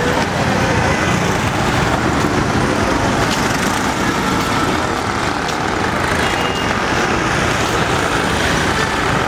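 Steady, loud street noise of road traffic running.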